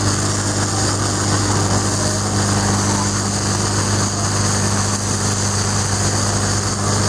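Portable fire pump engine running steadily at high revs, driving water through the hoses, over the hiss of the water jets spraying.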